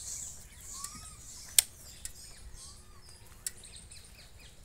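Birds chirping in short rising-and-falling calls, with a sharp click about a second and a half in and a fainter one later.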